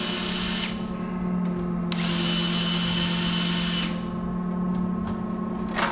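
Power drill running in two bursts, the first stopping under a second in and the second lasting about two seconds, as bolts are taken out to remove a rear bumper. A steady low hum runs underneath, and there is a sharp click near the end.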